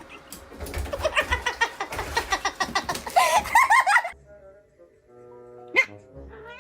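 Giggling laughter over busy clattering noise for about four seconds. Then a sudden switch to soft background music, with one short high-pitched sound near the end.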